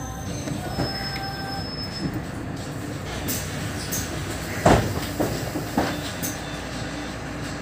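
Mercedes-Benz Citaro O530 city bus heard from inside while driving: a steady low running noise with several sharp knocks and rattles from the body, the loudest about halfway through, and brief thin squealing tones about a second in.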